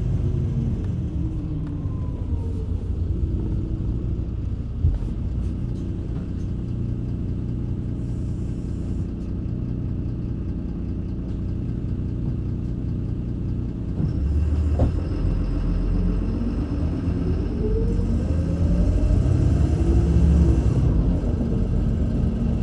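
MAN Lion's City LE (A78) diesel bus with a ZF Ecolife automatic gearbox, heard from on board while driving: a steady engine and road rumble with a single knock about five seconds in. From about fifteen to twenty seconds in the engine pitch rises as the bus accelerates.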